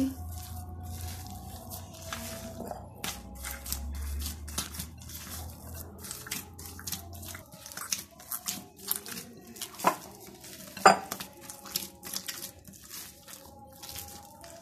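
Hands punching down and kneading a soft, risen yeast dough in a glass bowl to press the air out: irregular squelching, slapping and sticky tearing. Two sharper knocks come about a second apart around two-thirds of the way through.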